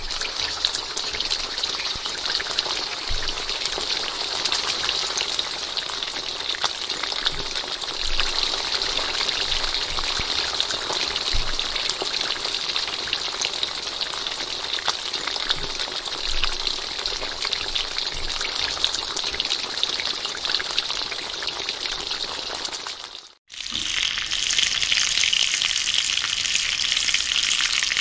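Food frying in hot oil: a steady, dense crackling sizzle. About 23 seconds in it fades out for a moment and comes back as a brighter, slightly louder sizzle.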